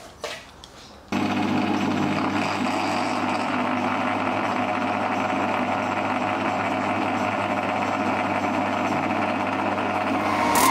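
Milling machine running a boring head that is cutting a hole in a 6061 aluminium billet block: a steady machine hum with cutting noise. It starts abruptly about a second in, after a faint click.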